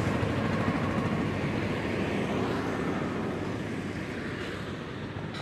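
Steady road noise from a passing motor vehicle, its engine and tyre sound slowly fading away.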